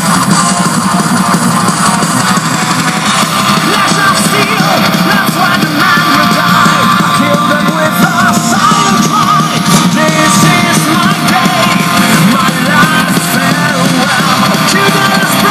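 Loud rock music with a shouted vocal over guitars, played through a Tevion two-way bookshelf speaker under test. There is little deep bass.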